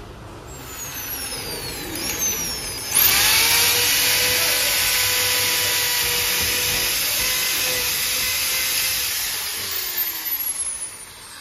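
Electric power drill running steadily with a high whine while a number plate is fitted to a car. It starts suddenly about three seconds in and winds down near the end, after a few seconds of quieter whirring.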